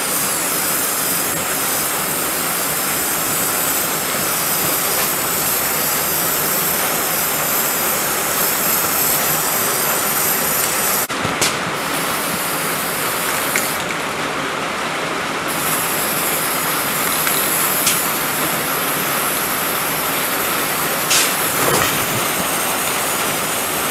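Aerosol can of black Rust-Oleum spray paint hissing in long, steady sprays. There is a brief break about halfway.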